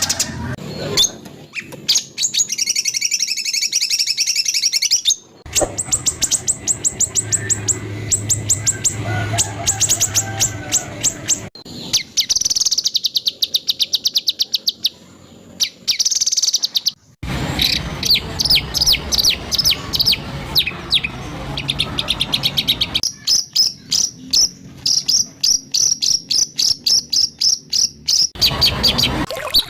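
White-rumped shama (murai batu) song in harsh, rapid bursts of repeated high notes, many to the second. It comes as a string of spliced recordings that break off and change abruptly every few seconds.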